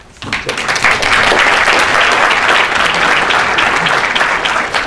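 A large audience applauding, the clapping swelling within the first second and thinning out near the end.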